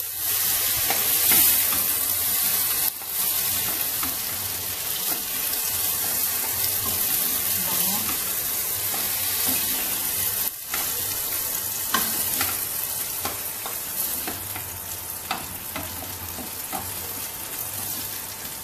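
Bell pepper chunks sizzling as they fry in hot oil in a stainless steel pot, stirred with a wooden spatula. The sizzle is steady, with scattered light knocks and scrapes of the spatula against the pot, more of them in the second half, and it eases slightly near the end.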